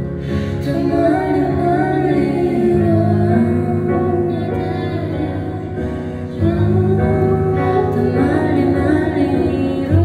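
A woman singing a slow song live into a microphone, over sustained low instrumental chords that change about three seconds in and again just past six seconds.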